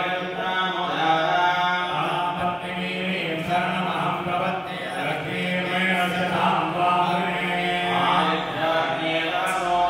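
A group of Hindu priests chanting Sanskrit mantras together in a continuous recitation for a purification ritual.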